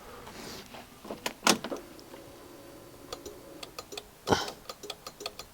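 Honda Forza 125 scooter clicking from down by the battery instead of cranking when the start is tried, even with a jump battery connected: a no-crank fault. A couple of single clicks, then a steady run of sharp clicks at about five a second in the second half.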